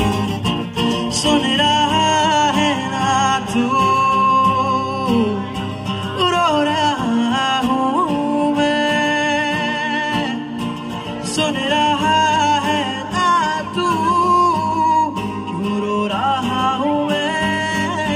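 Male singer singing live into a microphone to his own acoustic guitar, drawing out long, wavering notes.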